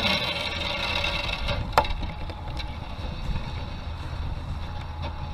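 Spinning reel and line on a cast-and-retrieve: a high whir that fades over the first second or so, a sharp click just under two seconds in, then the reel being cranked with a faint steady whir.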